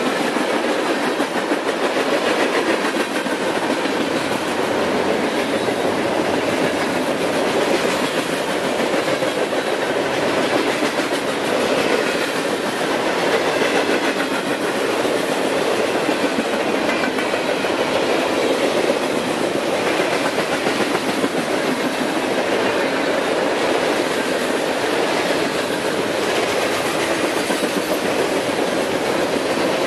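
Freight cars of a long train rolling past at close range: a steady rumble and clatter of steel wheels on the rails.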